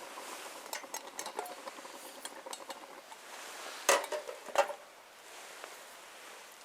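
Metal utensil clinking and scraping against a cooking pot, with two louder knocks about four seconds in.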